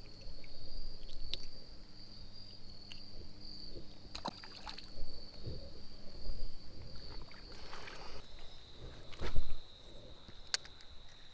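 Shallow creek water sloshing and splashing, with a few sharp clicks and knocks and a louder splash about nine seconds in, over a steady high-pitched insect drone.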